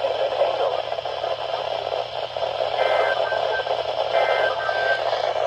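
Static-laden emergency-alert radio reception, a steady hiss. From about three seconds in, short warbling digital data bursts of the EAS/SAME kind repeat roughly every second and a half.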